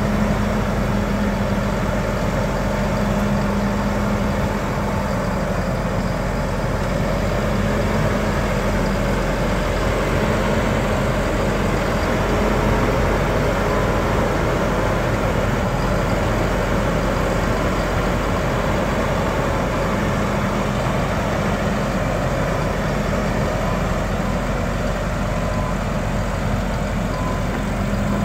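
Case IH Magnum 315 tractor's six-cylinder diesel engine running at a low, steady speed while the tractor moves slowly. It gives a constant engine note with no revving.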